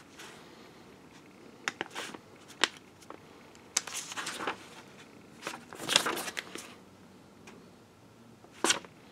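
Paper pages of a printed instruction manual rustling as they are handled and turned: a handful of short crinkles and paper clicks at irregular intervals, the longest and loudest about two-thirds of the way in.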